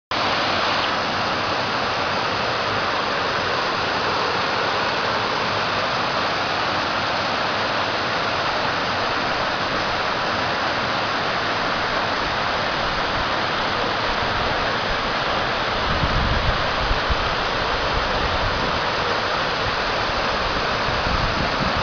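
Waterfall rushing steadily, a constant roar of falling water. Over the last several seconds, low irregular thumps of wind on the microphone join it.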